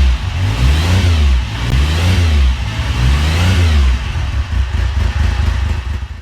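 Engine revved up and back down several times in quick succession, then cut off suddenly.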